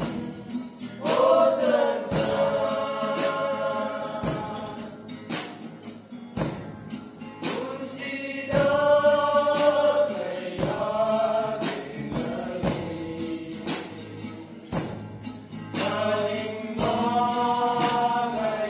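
A small group of men singing a gospel song in harmony, with an acoustic guitar strummed along. The voices hold long notes at the end of phrases.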